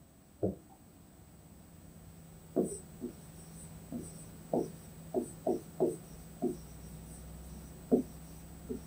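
Stylus tapping and knocking on the screen of an interactive whiteboard while writing a word by hand: a single tap about half a second in, then about ten short, irregular taps from about two and a half seconds on.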